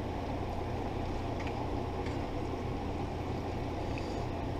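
Thick cream pasta sauce simmering in a pot on the stove: a steady low rumble, with a few faint light clicks about a second and a half, two seconds and four seconds in.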